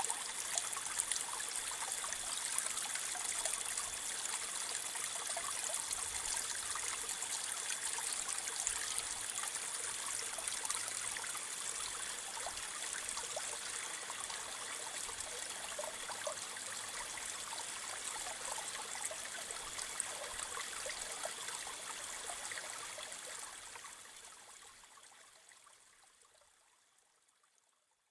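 Steady running-water sound, like a trickling stream, with a faint high steady tone above it; it fades out over the last few seconds.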